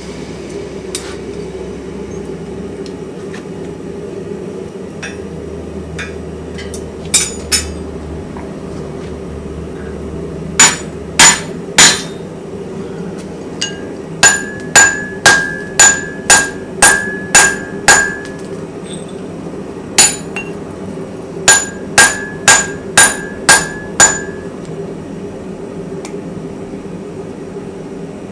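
Hand hammer blows on an anvil while forging a small hammer head: two light taps, three heavy blows, then runs of about eight and six blows at roughly two a second, most with a pitched metallic ring. A steady low hum runs underneath.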